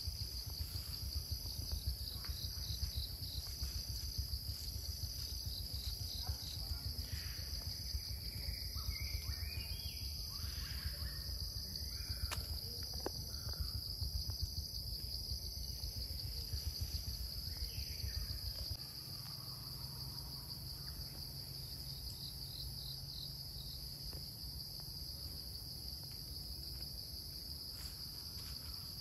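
Insect chorus: a steady high-pitched drone with a softer, repeating pulsed trill above it. Underneath is a low rumble that drops away about two-thirds of the way through.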